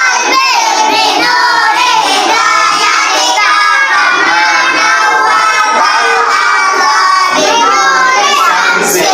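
A class of young children reciting their opening prayer aloud together in a sing-song chorus of many voices, without a break.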